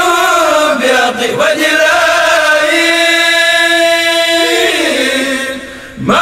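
A kourel of male voices chanting a Mouride qasida in Arabic without accompaniment, holding long drawn-out notes that step up and down in pitch, with one long steady note in the middle. The chanting dips briefly in level just before the end.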